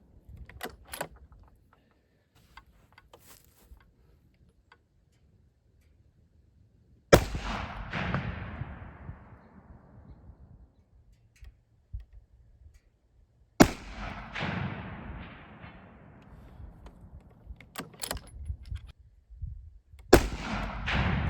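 Three rifle shots, spaced about six and a half seconds apart, each followed by a long rolling echo that dies away over several seconds. A few faint clicks come before the first and the last shot.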